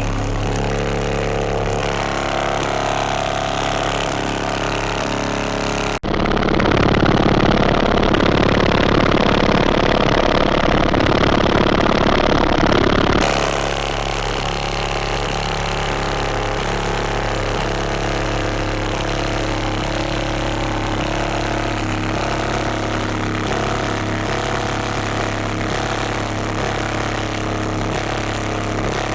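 AQ HDC4 12-inch car-audio subwoofer with a folded, weakened cone, played hard with heavy, buzzing bass over steady low tones. About six seconds in it jumps louder and harsher for roughly seven seconds, then drops back.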